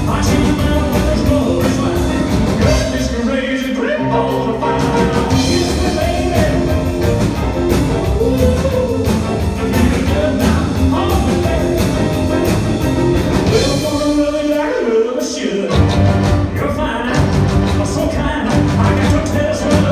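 Live rock and roll band playing: piano, electric guitar and drums. About three-quarters of the way through, the bass and drums drop out briefly, then kick back in.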